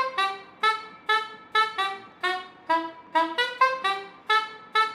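Saxophone playing a quick staccato tune of short, separate notes, about four a second, leaping up and down in pitch.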